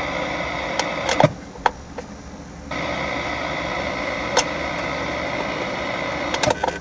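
Chrysler Infinity car radio playing plain static hiss through the car's speakers, tuned to 530 on the AM dial with no station coming in. The hiss drops quieter for about a second and a half early on, and a few sharp clicks come through.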